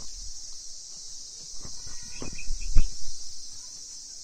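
Crickets chirring steadily and high-pitched throughout, with a few rustles and thumps of a bottle gourd vine being handled as a gourd is picked, the loudest thump about three seconds in.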